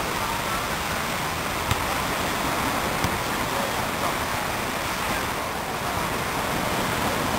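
Steady rush of breaking surf and wind, with a few light knocks of a football being kicked and headed, about one every second or so in the first half.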